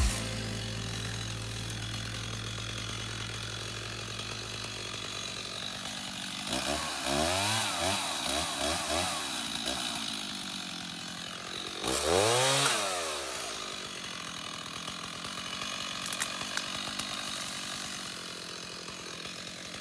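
Stihl MS 290 Farm Boss two-stroke chainsaw running steadily, then revved to cut brush: several quick throttle blips about six seconds in and one long rev about twelve seconds in, the pitch climbing and falling each time. After the second rev it settles back to steady running and fades near the end.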